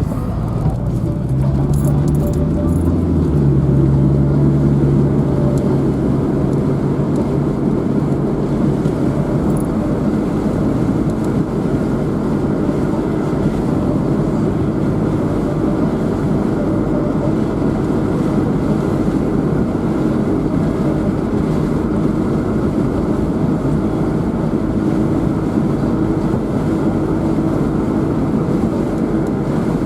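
A car driving: its engine pitch rises over the first few seconds, then settles into a steady drone of engine and road noise.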